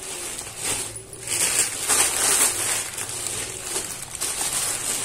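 Plastic packaging rustling and crinkling as a new sari is handled out of its bag, loudest in a stretch about a second and a half in.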